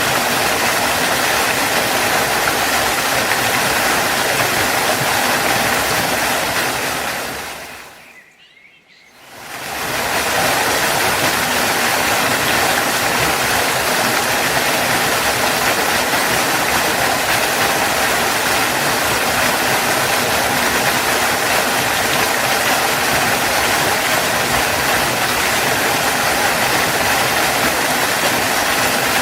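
Steady, loud rush of a waterfall's falling water. About eight seconds in it fades out, dips briefly, and fades back in, as at a join between two waterfall recordings.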